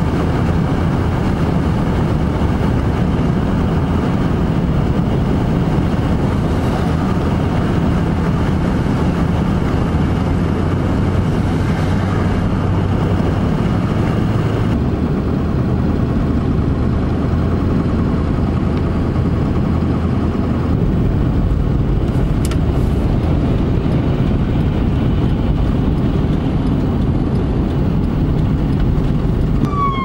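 Steady road and engine noise heard inside a vehicle's cabin while driving on a slushy, snow-covered highway, changing in tone about halfway through. A siren begins to wail right at the end.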